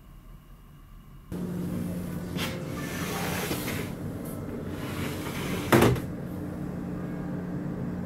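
Wooden-framed shoji sliding screens slid open along their track, rubbing and rattling, with one sharp knock about six seconds in as a screen hits its stop. Under it runs the ship's steady low hum.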